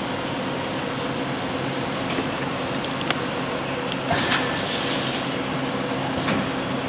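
Jinn Fa JSL-32AB Swiss-type CNC lathe running a part with flood coolant pouring: a steady machine hum and hiss, with a few sharp clicks and a louder hiss lasting about a second, roughly four seconds in.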